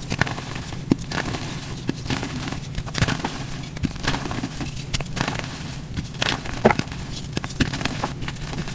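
Blocks of green gym chalk crunching and crumbling in the hands over loose chalk powder, an irregular run of dry crackles and snaps.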